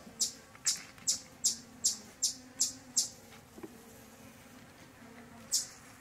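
Honeybees humming steadily over an open hive. Over the hum, a sharp high-pitched chirp repeats about two or three times a second, stops about three seconds in, and starts again near the end.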